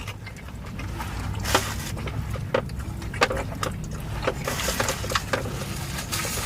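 Close-up eating sounds of someone chewing a saucy burger: wet mouth clicks and smacks at irregular moments over a low steady hum.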